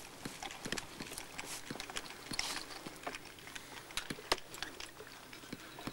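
Footsteps on loose rocky ground: irregular crunches, scrapes and knocks of stone underfoot, with a few sharper clicks.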